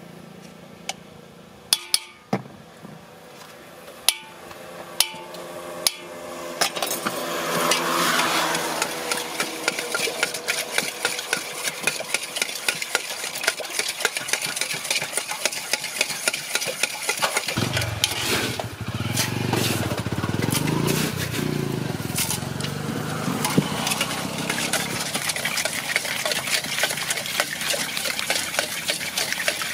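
A few separate sharp clinks of glass and metal, then from about seven seconds in a spoon stirring a drink in a glass with rapid, steady clinking. A low rumble joins at about eighteen seconds.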